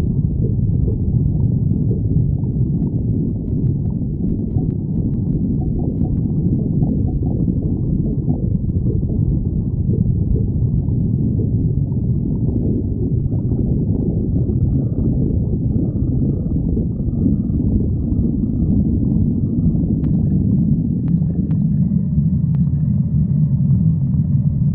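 A person's stomach growling: continuous low gurgling and rumbling, with a few faint clicks near the end.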